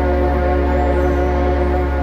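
Ambient sleep music: a slow drone of several held tones over a steady deep low hum, with no beat.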